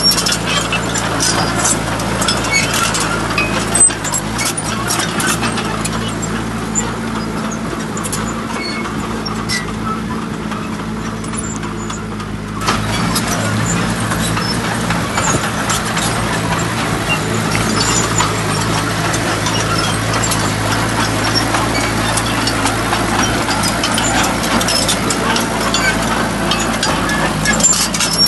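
Heavy diesel engine running steadily at a low, even pitch, with scattered clicks and knocks over it. The noise jumps up suddenly about halfway through.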